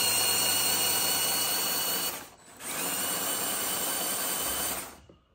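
Two LEGO Powered Up L motors driving the LEGO Technic car's drivetrain and piston engine, running with a steady high whine. They run for about two seconds, stop briefly, then run again for about two seconds and cut off near the end.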